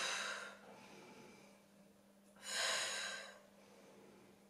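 A woman breathing audibly while holding a Pilates crunch: a breath trailing off at the start and one more breath, about a second long, about two and a half seconds in. A faint steady hum runs underneath.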